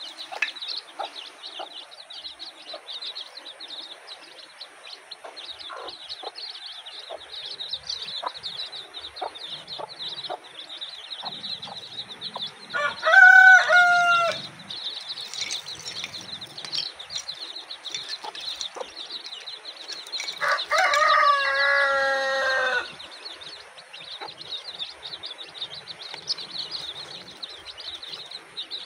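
Domestic chicks peep constantly while a hen clucks softly among them. A rooster crows twice, first about halfway through and again, longer and falling in pitch, about two-thirds of the way through.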